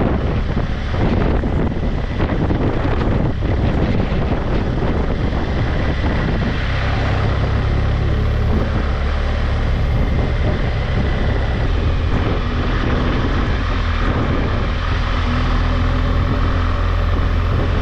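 A car driving along: a steady low drone of engine and road noise.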